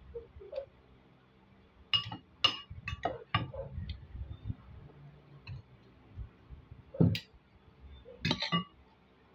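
Metal spoon and fork clinking and scraping against a plate while eating rice and fish, a cluster of sharp clinks about two to three and a half seconds in and more near seven and eight and a half seconds.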